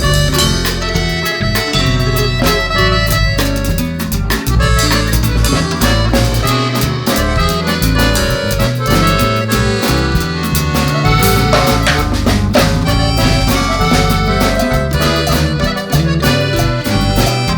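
Upbeat background music with drums and accordion-like melody, a steady beat throughout.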